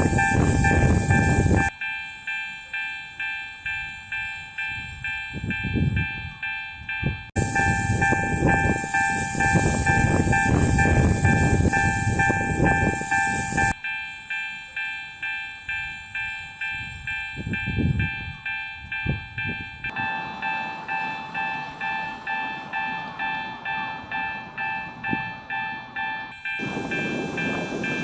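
Railroad crossing warning bell ringing steadily in a clanging rhythm of about two strikes a second. In parts a loud rushing noise joins it, starting and stopping abruptly.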